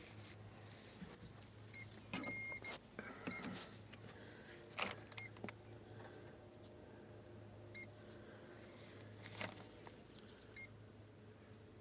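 Short electronic beeps repeat every few seconds, one held for about half a second, typical of an RC boat's electronic speed controller beeping. They sit over a low steady hum, with scattered clicks and knocks of handling.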